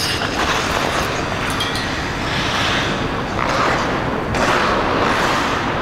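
Ice rink ambience once the program music has stopped: a steady low rumble, with several hissing swishes of skate blades on the ice, the longest near the end.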